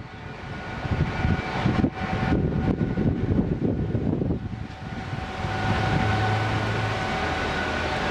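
Irregular low rumbling for the first few seconds. About five seconds in, a steady engine drone with a high whine takes over.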